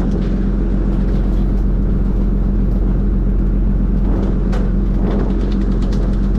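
Fishing boat's engine running steadily, a loud drone with a constant low hum. Two short noises about four and a half and five seconds in.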